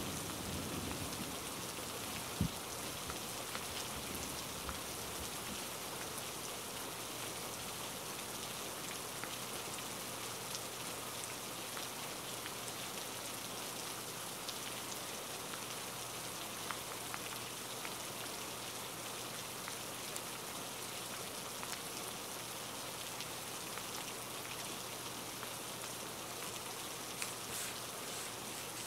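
Steady rain falling, with a low rumble fading out in the first second and a single short low thud a little over two seconds in.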